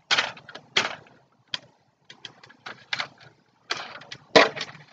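Hard plastic parts of a toy crossbow knocking and clicking irregularly as the bow is worked onto the stock during assembly, with a louder knock about four and a half seconds in.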